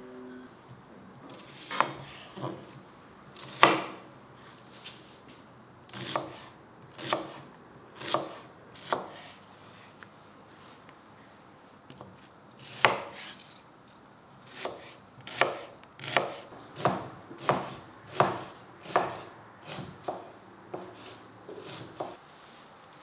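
Chef's knife slicing peeled onions on a plastic cutting board: single sharp knocks of the blade through the onion onto the board, irregular at about one a second, coming quicker in the second half.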